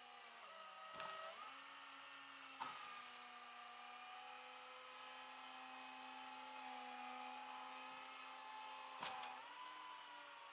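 Faint, steady hum of a vehicle engine heard from inside the cab, with three sharp clicks. The pitch of the hum shifts around each click.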